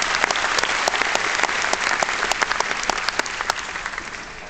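Convention audience applauding, many hands clapping at once; the clapping dies away near the end.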